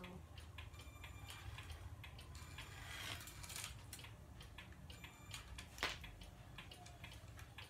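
Faint mechanical ticking and clicking over a low steady hum, with one sharper click about six seconds in.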